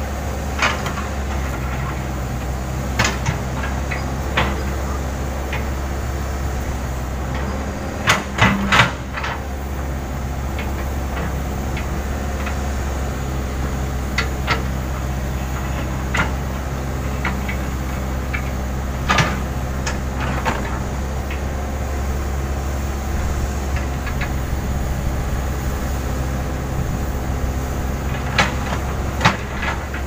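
Case N Series backhoe loader's diesel engine running steadily while the backhoe digs, with scattered sharp clanks and knocks of the steel bucket against soil and stones, including a quick run of three about eight seconds in.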